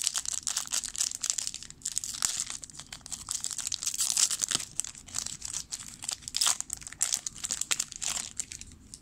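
Foil wrapper of a 2007 Upper Deck football card pack crinkling and tearing as it is ripped open by hand, an irregular run of crackles that dies away near the end as the cards come out.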